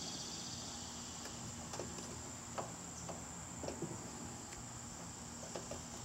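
Steady, high-pitched chirring of insects, with a few faint clicks and taps of brass fittings being handled as a refrigerant gauge hose is screwed onto a service valve.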